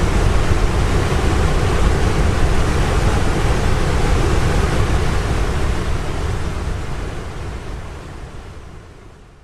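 A waterfall's steady rush of falling water in a binaural recording, fading out smoothly over the last few seconds.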